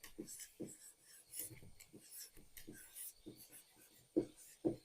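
Handwriting: a series of short, irregular pen strokes scratching across a writing surface, faint.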